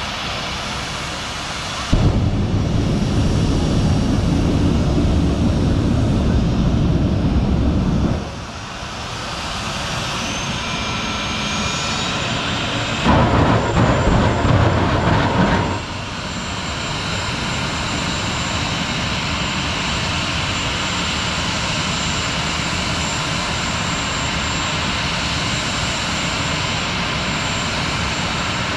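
Heavy vehicle engine noise, most likely big diesel trucks. A loud low rumble starts about two seconds in and lasts around six seconds, and a second loud burst comes near the middle. After that a steady rush continues, with a high whine that climbs in steps and then holds.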